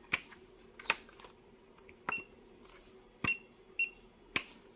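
Keys on a Hioki IR4056 insulation tester clicking as they are pressed, about five presses, with short high beeps from the tester coming with three of them in the second half. The presses are the safety release key and measure key, which must be pressed in turn to start a 500 V or 1000 V insulation test.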